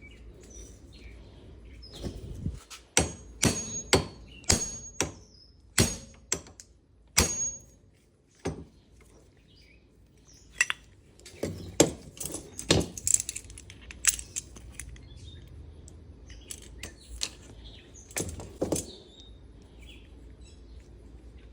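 Hammer blows on a socket, metal on metal, driving a bearing cap out of a steering shaft universal joint. A quick run of about eight blows, some with a high metallic ring, then a pause and a few more scattered strikes.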